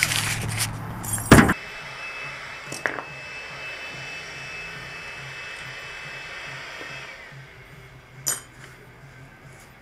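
Loud handling and wind noise for about the first second and a half, ending in a sharp knock. Then a quiet stretch with a faint steady whine and a faint low beat, broken by two light metallic clinks as roller-skate wheels and axle parts are handled.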